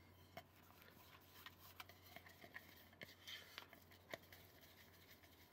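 Near silence with faint, scattered light clicks and taps: small utensils and baking pans being handled.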